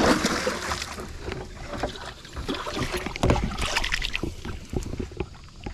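A flounder splashing in a boat's livewell as it is dropped into the water, then hands swishing and rinsing in the livewell water about three seconds in.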